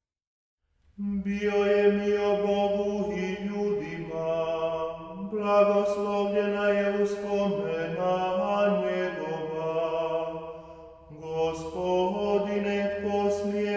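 Male voices of a Franciscan friars' nonet chanting vespers in Croatian without accompaniment. The singing begins about a second in, with a held low note under a moving melody, and pauses briefly twice between phrases.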